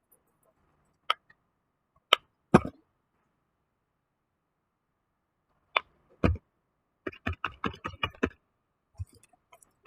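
Fidget toys being handled: scattered sharp clicks and knocks, then a quick run of about nine clicks, roughly seven a second, around seven to eight seconds in.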